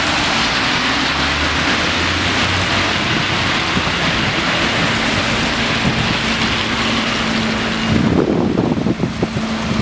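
Steady wet hiss of rain and tyres on a flooded road, with a bus engine running low underneath. About eight seconds in the hiss falls away and wind buffets the microphone in low gusts.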